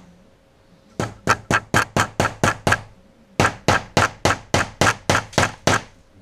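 Hammer driving small nails through polyethylene pipe into the wooden insert inside it: quick, sharp blows about four a second, in two runs of roughly nine and ten strikes with a short pause between.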